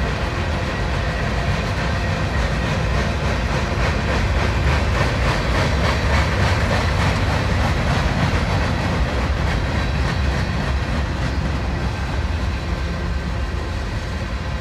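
A long freight train of tank cars rolling past, a steady rumble and clatter of steel wheels on the rails that swells slightly in the middle.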